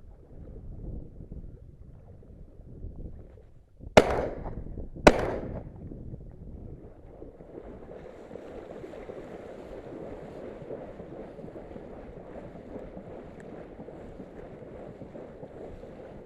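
Two shotgun shots about a second apart, each trailing off in an echo, over wind noise on the microphone; a steady rushing noise sets in about halfway through.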